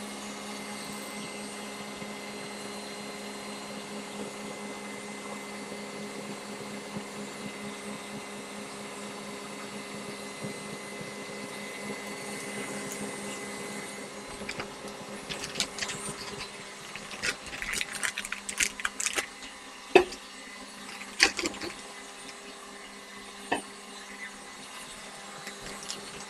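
Electric stand mixer running steadily, whipping egg whites and sugar into a stiff meringue. From about halfway, crinkling of a plastic piping bag and a few sharp clicks sound over the motor hum.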